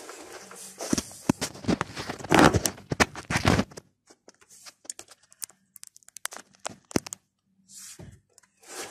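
Irregular scraping, crackling and clicks from a car's front driveshaft (cardan) area as the wheel is turned by hand to check the joint for play. The noise is dense for about the first four seconds, then turns to scattered clicks with quiet gaps.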